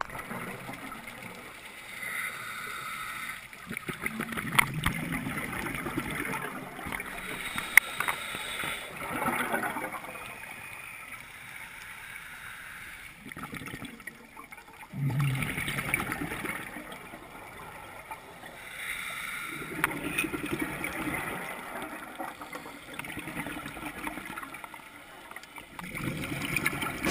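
Scuba diver breathing through a regulator underwater: bursts of gurgling exhaled bubbles and hiss that come and go every few seconds, with a few small clicks.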